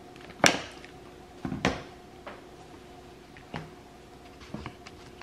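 A stick blender being handled and switched off for a rest: a few sharp clicks and knocks as the motor body is unclipped from the blending shaft and set down on a stone board, the loudest about half a second in and a pair about a second later. The motor is not running.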